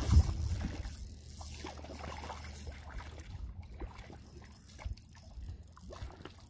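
A hooked trout thrashing and splashing at the surface as it is reeled to the shore, with scattered short splashes and clicks. A low rumble is loudest right at the start.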